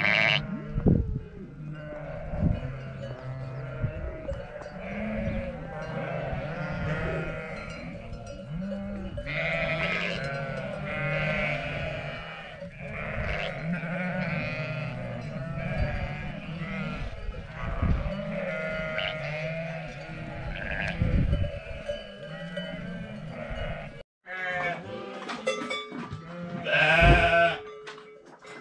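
A flock of sheep and goats bleating, many calls overlapping continuously. The sound cuts out for a moment near the end, then the bleating comes back louder.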